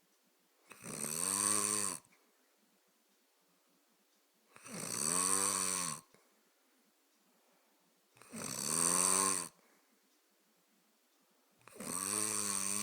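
Snoring: four pitched snores, each a little over a second long, coming about every three and a half seconds. Each snore's pitch rises slightly and then falls.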